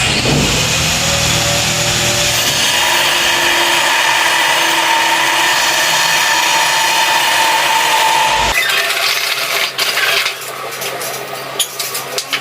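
A power tool runs and cuts steadily for about eight and a half seconds, then stops abruptly. Lighter knocks and scraping follow.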